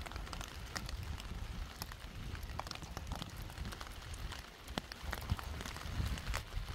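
Steady rain falling, heard as many separate sharp drop hits at irregular moments over a low rumble.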